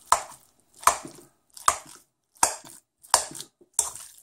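A metal fork working cold risotto in a ceramic bowl. Six even mixing strokes about three-quarters of a second apart, each a short scrape and clack of the fork against the bowl through the rice.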